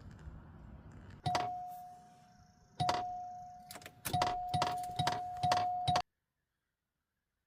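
An odd noise from a car: a series of sharp clicks, each followed by a steady ringing tone. Two come spaced well apart, then five follow in quick succession before the sound cuts off suddenly.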